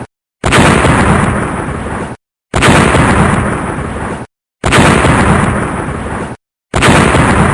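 Explosion sound effect played on a loop: a sudden blast with a deep rumbling decay, cut off abruptly after under two seconds. It repeats about every two seconds, four times, with dead silence between.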